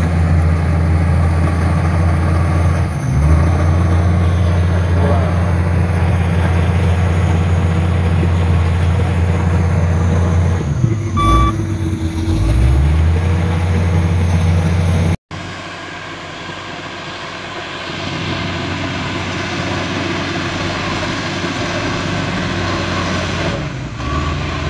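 Komatsu D85E bulldozer's diesel engine working under load, a steady deep drone whose pitch sags and climbs again a little past the middle, with one brief beep about eleven seconds in. Around fifteen seconds in the sound cuts to a quieter, noisier stretch where the engine is less prominent.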